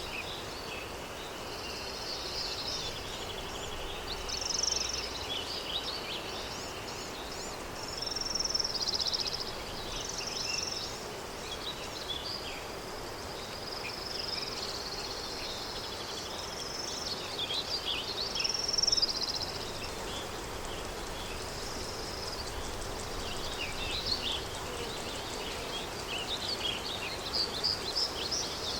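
Daytime countryside ambience: many small birds chirping and trilling over a steady hiss of wind, the calls coming thicker near the end.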